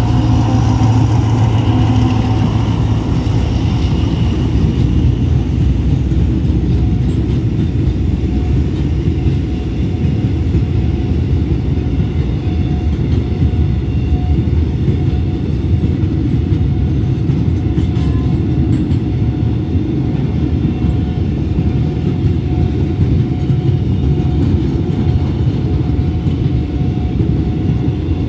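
Alsthom diesel-electric locomotive passing close by, its engine loud for the first few seconds, then the steady rumble of a long freight train of container wagons rolling past.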